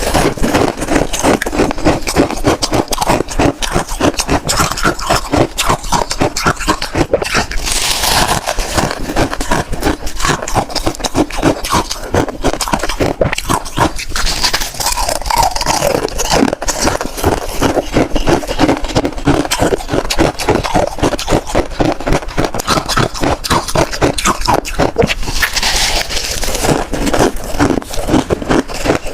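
Close-miked chewing and crunching of freezer frost: a continuous fast stream of crisp crackles, with a few louder, hissier scrapes or bites about eight seconds in and again near the end.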